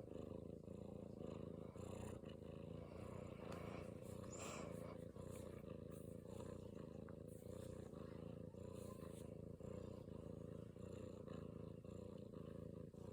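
Domestic cat purring steadily, a low continuous rumble close to the microphone.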